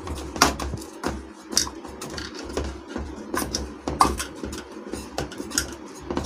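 A steel bowl pressing and patting a sticky dry-fruit and coconut mixture flat in a steel tray, giving irregular metal clinks and knocks with soft scuffing between them. The loudest knocks come about half a second and four seconds in.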